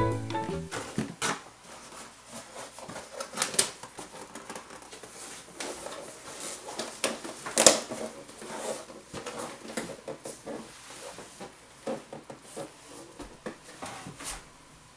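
Irregular rustling, scraping and light knocking of a large cardboard dinosaur head being handled and moved about, with one sharper knock about halfway through.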